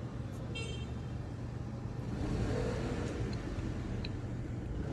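Road traffic: a steady low engine hum under a noisy wash, growing louder about two to three seconds in.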